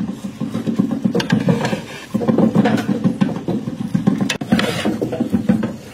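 A loud, steady, low engine-like rumble with a few sharp clicks or knocks on top.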